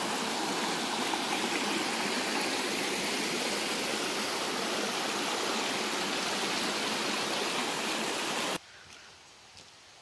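Creek water rushing and splashing over rocks in a small cascade, a steady rush that cuts off suddenly about eight and a half seconds in.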